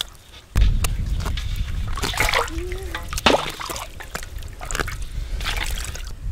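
Wet feathers being plucked from a scalded chicken over a bowl of hot water, with splashing, sloshing and dripping as the bird is handled in the water. A low rumble comes in suddenly about half a second in.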